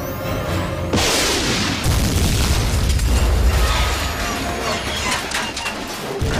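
Shoulder-fired missile launching with a sudden blast and hiss about a second in, followed by a long, low rumbling boom of the explosion that lasts several seconds.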